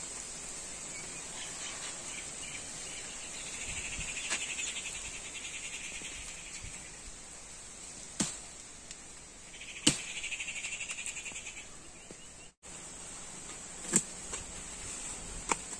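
Steady high-pitched drone of insects, with a trilling call rising up in two stretches of a few seconds each, and several sharp clicks scattered through.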